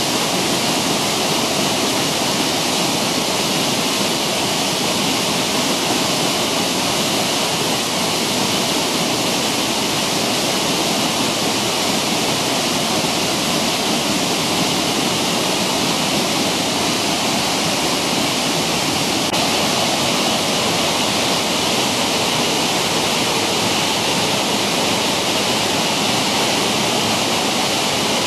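Waterfall: the steady, unbroken rush of white water falling and cascading over rocks.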